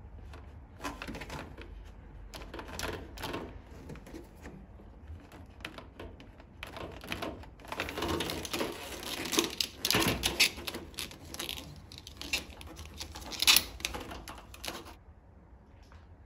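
Plastic drain hose being pushed and twisted onto a heat pump dryer's plastic drain outlet by hand: irregular clicks, scrapes and rustles of plastic on plastic, busiest in the middle, with one sharp click about two-thirds of the way through.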